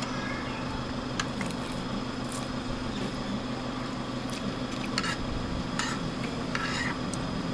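Scattered clinks and light knocks of plates and cutlery at a dining table, about half a dozen spread through, over a steady low background hum.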